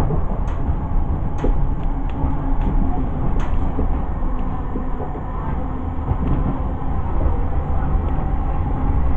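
ScotRail passenger train passing: a steady rumble of wheels on the rails, with a few sharp clicks.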